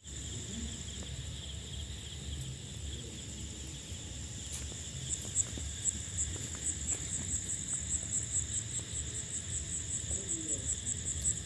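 Night insects trilling: a continuous high-pitched trill that starts pulsing several times a second about halfway through, over a low rumble.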